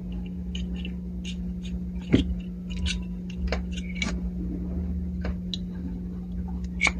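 Small clicks and taps of the clip fan's motor parts being handled and fitted back together after greasing, over a steady low hum. The sharpest taps come about two seconds in and near the end.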